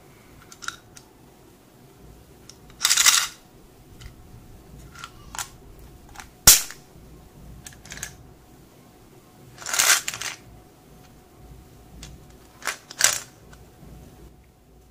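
Small clear plastic DeWalt screwdriver-bit box being handled. A sharp plastic snap comes about six and a half seconds in as its hinged lid clicks shut, among short bursts of handling noise near three, ten and thirteen seconds and a few light clicks.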